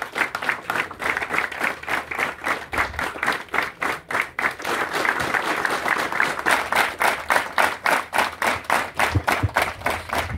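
A large crowd applauding. Partway through, the clapping settles into an even rhythm of about four claps a second.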